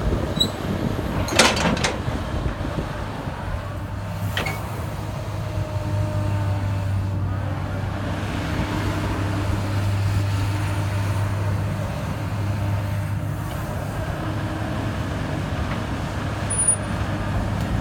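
Komatsu PC200LC-8 excavator's six-cylinder diesel engine running with a steady low hum, with a couple of sharp knocks in the first five seconds.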